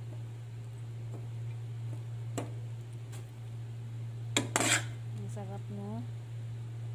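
A utensil clinking and scraping against a glass bowl of saucy cooked chicken pieces. There are a couple of light clinks, then a louder cluster of clinks about four and a half seconds in, over a steady low hum.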